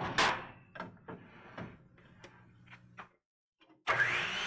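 A wooden board knocked and slid into place on a Ryobi BT3000 table saw: a sharp knock, then several lighter taps and clicks. About four seconds in the saw is switched on, and its motor whines up to speed in a rising whine and settles into a steady run.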